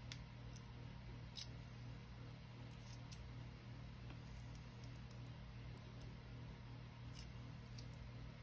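Small scattered clicks of lock picks working a Mul-T-Lock Junior padlock, with one sharper click about a second and a half in, over a steady low hum.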